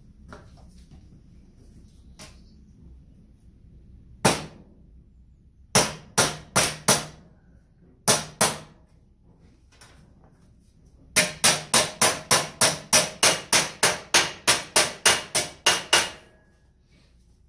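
Hammer striking sheet-metal tabs of a kick panel to bend them over. Single blows and short groups come first, then a fast run of about sixteen even blows, roughly three a second, each ringing briefly.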